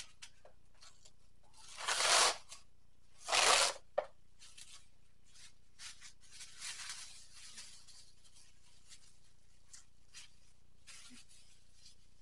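Plastic bag being ripped open by hand: two loud tearing rips about a second and a half apart, a sharp click just after, then softer crinkling of the plastic.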